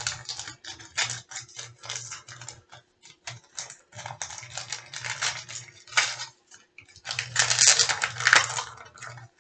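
Gift wrapping crinkling and tearing as a wrapped package is opened by hand, in irregular rustles with a louder stretch about seven seconds in.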